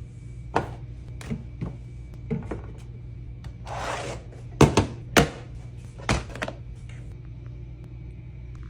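A series of sharp knocks and thunks, like things being set down or handled in a small room, with a brief swish a little before the loudest pair of knocks about halfway through.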